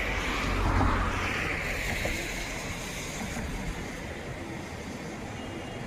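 Steady rushing noise of the Godavari river in flood, with wind rumbling on the microphone, strongest about a second in.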